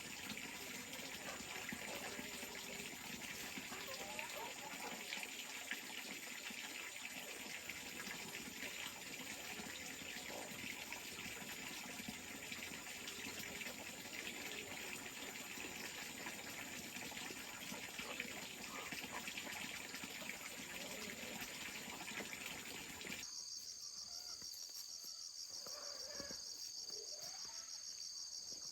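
Water running steadily, with insects droning high above it. About 23 seconds in the water sound cuts off sharply, leaving a fast-pulsing insect chorus.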